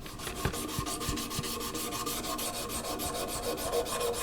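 Rapid, regular back-and-forth hand sanding on the paint pressure pot's metal handle, about seven scratchy strokes a second: wet sanding with 400-grit auto paper.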